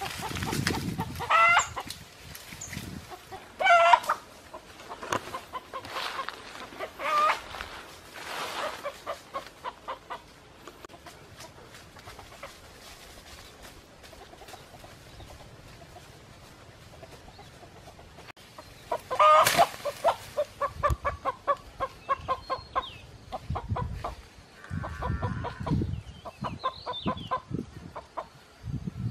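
Wild chicken clucking and squawking: a few separate calls early on, then a loud squawk about two-thirds of the way in followed by a rapid run of clucks.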